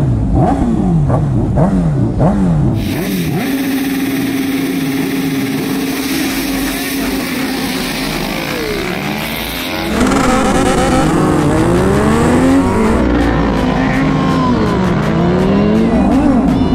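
Sport motorcycle engines revving on a race start grid. First a single engine, the Honda CBR1000 Fireblade's inline-four, blips the throttle in quick repeated revs. Then a held rev and, from about ten seconds in, several engines rev up and down together.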